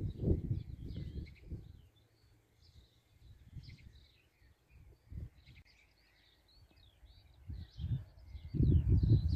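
Several small birds singing and chirping, with wind buffeting the microphone in rumbling gusts during the first two seconds and again near the end.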